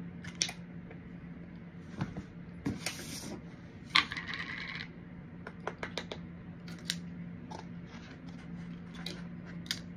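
Eating ice cream: a scatter of small sharp clicks and smacks, with two short scraping rustles about three and four seconds in.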